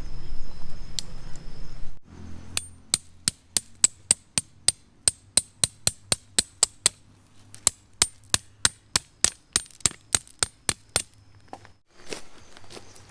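Tent stakes being hammered in: a long run of sharp, ringing strikes, about three or four a second, starting about two seconds in and stopping a little before the end.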